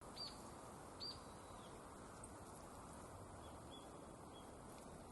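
Two short, high, sharp call notes from a small bunting, about a second apart, then a few fainter short notes a couple of seconds later, over a faint steady hiss of outdoor background noise.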